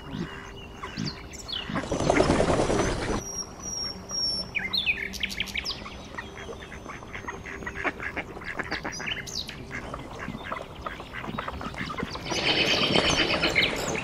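Ducks calling in short scattered calls, with a loud rough burst about two seconds in. High thin whistled notes come a little later, and a loud run of rapid high calls near the end.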